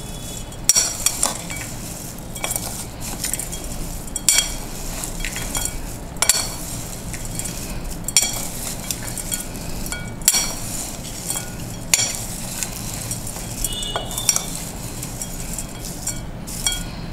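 Two metal spoons tossing dry fried potato shreds and peanuts in a ceramic bowl: a steady crisp rustle of the crunchy mix, with a sharp clink or scrape of spoon on bowl every second or two.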